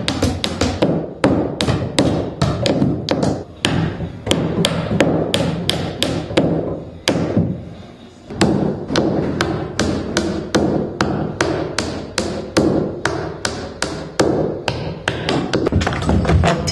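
Rapid, irregular hammer blows on a steel pry bar driven between wooden floorboards, about four or five strikes a second, with a short lull about halfway through.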